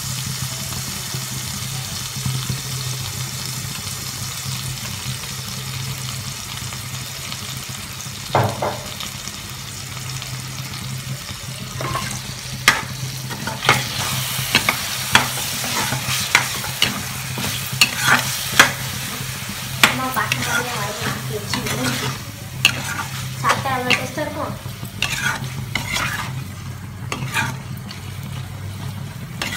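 Paneer and capsicum in sauce sizzling in a non-stick kadai over a steady low hum. From about twelve seconds in, a spatula stirs the mixture, scraping and knocking against the pan again and again.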